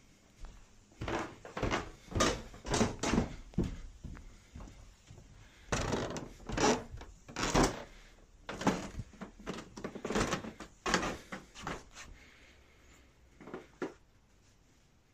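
Footsteps thudding on carpeted stairs and then across a loft floor, several steps a second in loose runs, thinning out near the end.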